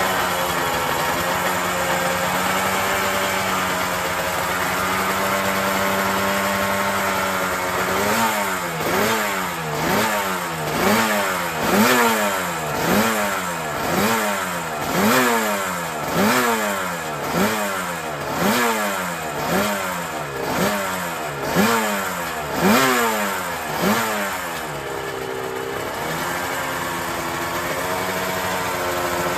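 Suzuki RGV Gamma 500's two-stroke V4 racing engine idling, then revved in sharp throttle blips about once a second for some sixteen seconds, each rising and dropping back, before settling to idle again near the end.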